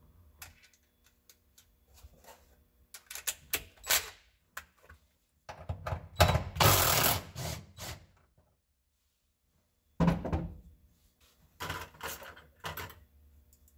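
Cordless impact driver running in one stretch of about two seconds near the middle, with clicks and rattles of a bit and small hardware being handled before and after.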